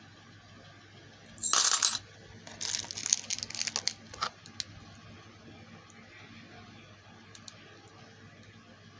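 Small metal coin charms clattering and clinking as a handful is let fall and handled: one dense clatter about a second and a half in, then a rapid string of clinks for about two seconds.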